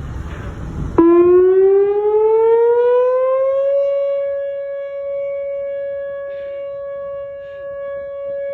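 Wind buffeting the microphone. About a second in, a rotating outdoor tornado warning siren starts abruptly and winds up in pitch over about three seconds to a steady wail, sounding for a test of the emergency warning system. After the wind-up it slowly gets quieter.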